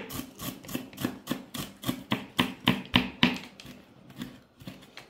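Stainless steel chef's knife chopping fresh dill on a wooden cutting board: a steady run of sharp knocks, about three to four a second, that thins out and fades near the end.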